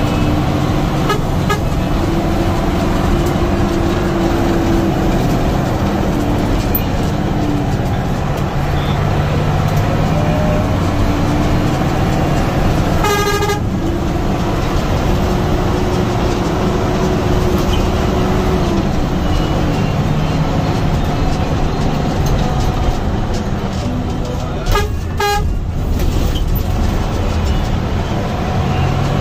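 Hino AK8 bus's diesel engine running under way, heard from inside the cab, its pitch rising and falling. A horn sounds for about a second midway, then two short toots near the end.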